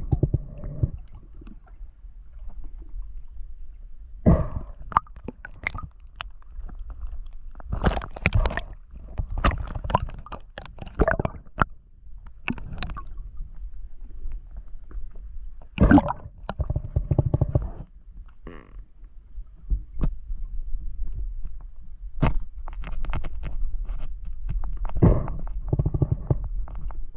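Underwater sound heard through a camera's waterproof housing: a steady low rumble with irregular muffled knocks, clicks and gurgles from the diver's spear and gear, coming in clusters a few seconds apart.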